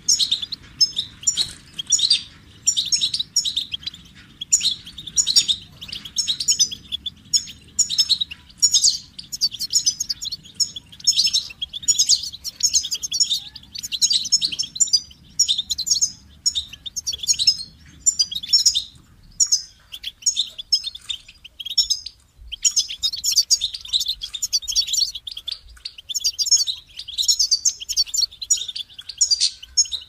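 European goldfinch singing: a fast, tinkling twitter of short high notes strung into quick phrases, nearly without a break.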